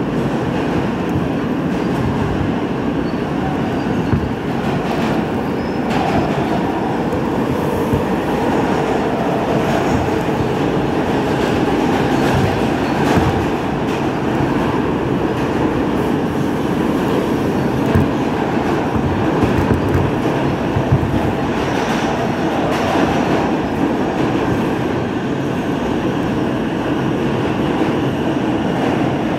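New York City Subway M train running through an underground tunnel, heard from inside the car. The wheels on the rails make a steady rumble, with scattered clicks as they pass over rail joints.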